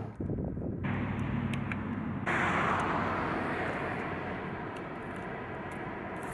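Road traffic: a steady rush of passing vehicles with a low engine hum. It grows louder and brighter about two seconds in, then eases off slowly.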